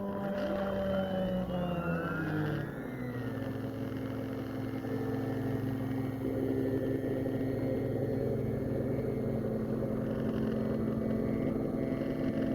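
Stepper motors driving a DIY aluminium-profile gantry. Their whine glides down and then back up in pitch during the first three seconds as the motors slow and speed up, then settles into a steady hum.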